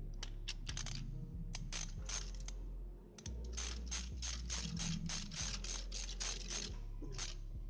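Sharp light clicks and taps from hands working among parts in a car's engine bay, with a quick even run of about four clicks a second in the middle, over a low steady hum.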